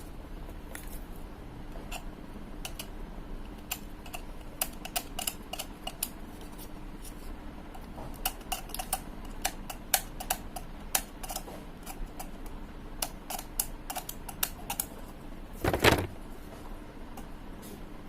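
Light, irregular clicks and taps of small hard parts being handled, with a louder knock and rustle about sixteen seconds in.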